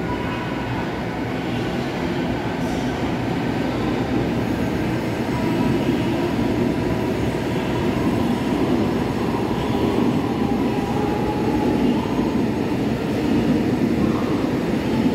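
Electric passenger train moving along the track beside the platform in an enclosed station: a steady rumble of wheels and running gear with a faint whine, growing gradually louder.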